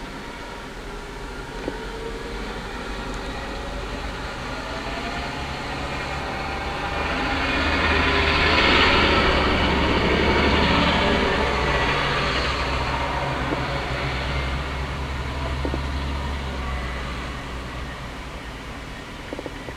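A large vehicle driving past. Its engine hum and tyre noise build slowly to a peak about nine seconds in, then fade away.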